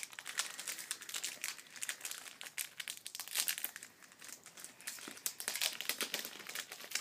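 Trading-card pack wrapper crinkling and cards being handled: a dense, irregular crackling, louder around three and a half and six seconds in.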